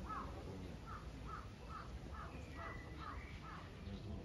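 A bird calling outdoors: a quick run of short, repeated cries, about two to three a second, that stops about three and a half seconds in.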